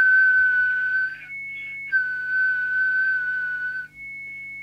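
Steady, high-pitched electronic test tone from the CB radio test bench, sounding in two long stretches with a short break. A fainter, slightly higher tone fills the break and takes over near the end.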